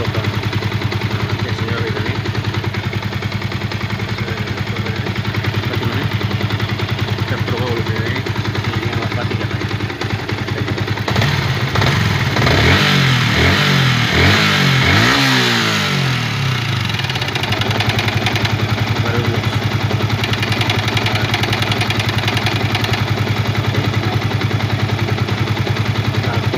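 Yamaha Vixion motorcycle's single-cylinder, fuel-injected engine idling steadily, revved a few times in quick blips about halfway through, then settling back to idle. The owner is checking it for a noisy, rattling ('kretek-tek') engine.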